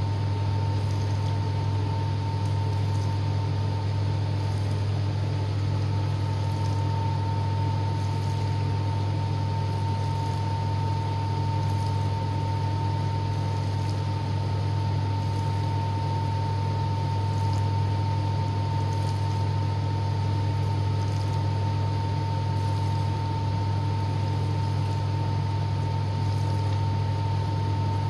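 Koryo KDW496DS countertop dishwasher running its wash cycle: a steady low hum from the machine with water spraying and splashing against the dishes and the door, and a thin steady whine above it.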